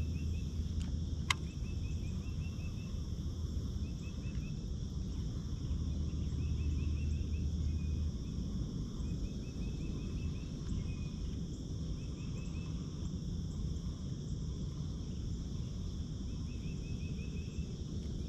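Insects chirping in short repeated trains over a steady high buzz, with a steady low rumble underneath; a low hum in the rumble stops about eight seconds in.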